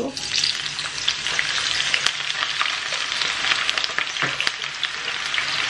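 Sliced onions hitting hot oil in a pan, setting off loud sizzling frying with scattered sharp crackles that starts the moment they go in.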